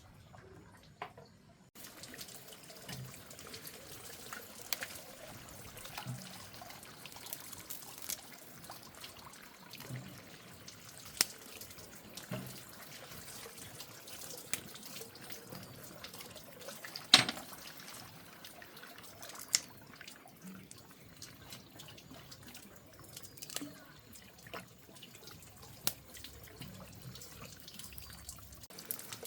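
Water running and splashing steadily, with scattered knocks and clinks; one sharp knock stands out about seventeen seconds in.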